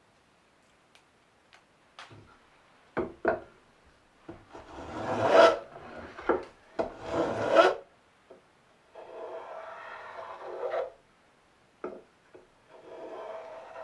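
A hand tool working wood in long scraping strokes, like a rasp or file, after a few light knocks. The first two strokes are short and loud; the last two are longer and quieter.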